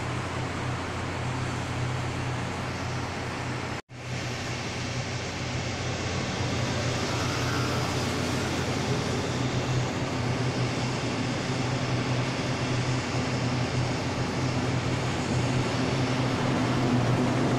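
Steady hum of a standing electric commuter train's equipment at the platform, blended with an arriving electric multiple unit train that grows gradually louder as it runs into the station. There is a split-second gap in the sound about four seconds in.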